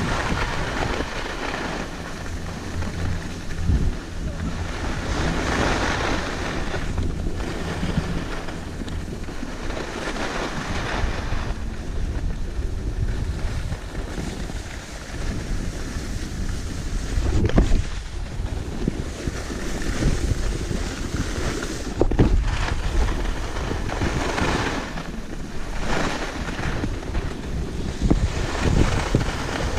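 Skis hissing and scraping over groomed snow during a downhill run, with wind rushing over the microphone; the noise swells and eases every few seconds with the turns, and two sharp knocks come past the middle.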